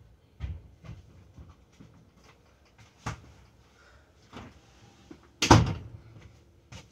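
Scattered light household knocks, then a door banged shut with a loud knock about five and a half seconds in that rings briefly.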